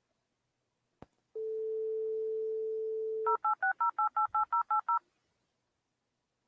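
Telephone dialing: a click about a second in, a steady dial tone for about two seconds, then a quick run of about a dozen touch-tone (DTMF) beeps, roughly seven a second.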